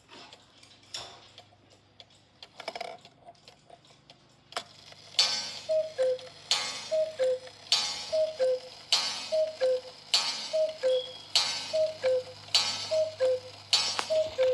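Cuckoo clock calling over and over in quick succession: each call a two-note falling cuckoo from the bellows-driven pipes, with a puff of air, starting about five seconds in after a few faint clicks.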